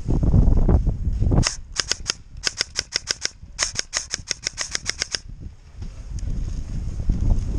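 Ares Amoeba airsoft electric rifle fitted with a dual sector gear, firing four quick bursts of sharp clacking shots at about eight shots a second. A low rumble of movement comes before the first burst.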